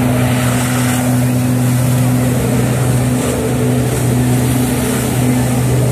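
The personal watercraft engine that powers a flyboard runs at a steady high throttle, giving an unchanging drone. Over it is the hiss of the board's water jets spraying.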